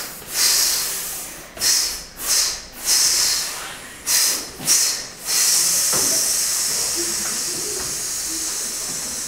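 A group of choir singers hissing together in a breathing warm-up: about eight short 'sss' exhalations in a row, then one long hiss held for about four seconds and slowly fading.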